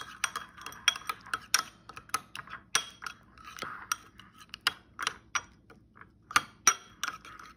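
Metal spoon clinking and scraping against a ceramic bowl while stirring thick sauce, with irregular sharp clinks a few times a second.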